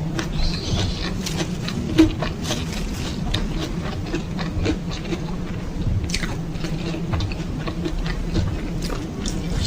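Close-miked chewing of chicken and petai (stink beans) in balado chili sauce: wet mouth clicks and smacks, with one sharper click about two seconds in.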